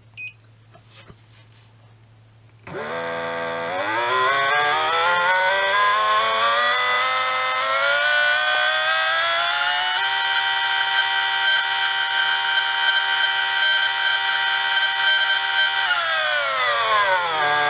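Surpass Rocket V6 17.5T stock-spec brushless RC motor spinning up under test. Its electric whine climbs in pitch for several seconds, holds steady at top speed, which peaks at about 23,400 RPM, then starts falling as the motor spins down near the end.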